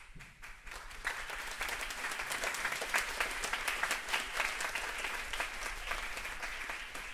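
Audience applauding, a dense patter of clapping that builds up about a second in and thins slightly near the end.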